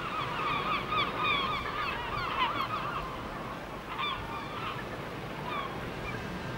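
A flock of birds calling, many short calls overlapping one another. They are densest for about the first three seconds, then thin out to scattered calls.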